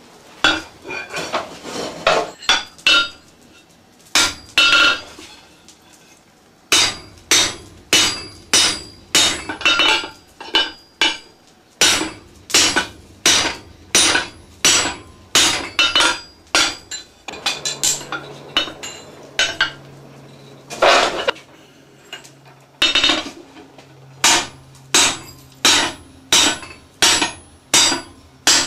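Hand hammer striking hot steel on an anvil in a steady rhythm of about one to two blows a second, with a few short pauses; each blow rings briefly.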